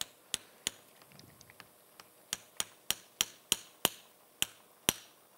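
Metal surgical mallet tapping the inserter handle of a knotless BioComposite SwiveLock anchor, driving the anchor into the humerus for the lateral row of a rotator cuff repair. A run of about a dozen sharp taps, roughly three a second, with a short pause about a second in.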